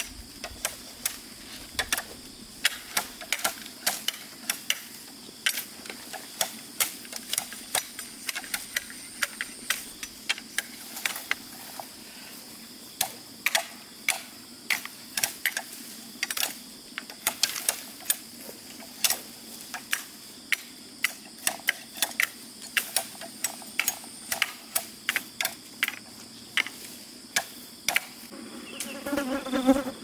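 Repeated sharp knocks and cracks of bamboo being chopped with a blade, a few a second at an uneven pace, over a steady high drone of insects. A short pitched call comes near the end.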